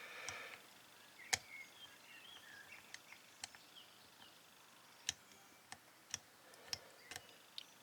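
Faint, irregular small clicks from a Master Lock combination padlock's dials and shackle being worked with a pick while its combination is decoded, one sharper click about a second and a half in.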